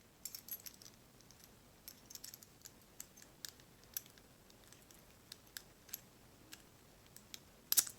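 Light, scattered metallic clicks and ticks from a reassembled American 1100 padlock being worked by hand to test that it still functions, with a louder cluster of clicks just before the end.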